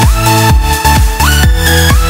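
Electronic dance music with a steady kick-drum beat and sustained synth notes.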